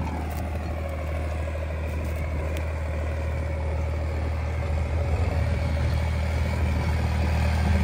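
John Deere 5105 tractor's three-cylinder diesel engine running steadily, growing slightly louder from about five seconds in.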